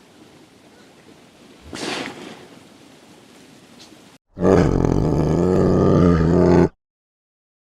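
A faint steady hiss with a brief rush of noise about two seconds in. Then, a little past halfway, one loud, long animal roar of about two and a half seconds that cuts off abruptly.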